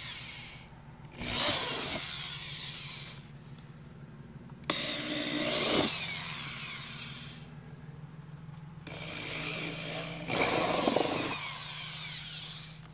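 Power drill with a 3/8-inch bit boring out holes in the plastic front bumper cover. It runs in four bursts of a second to a few seconds each, with short pauses between them.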